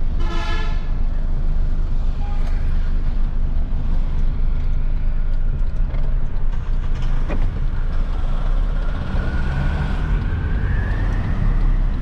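Isuzu Giga truck's 14,250 cc diesel engine running under way, heard from inside the cab. A short horn toot sounds right at the start, and near the end a whine rises in pitch as the engine picks up.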